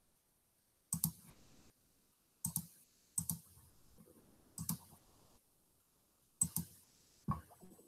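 Faint computer mouse clicks, six irregularly spaced presses, each a quick pair of clicks.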